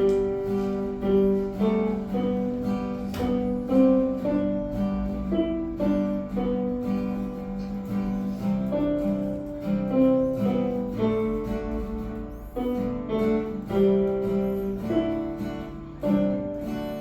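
Acoustic guitar playing a piece: a melody of plucked notes moving over a low note that keeps returning.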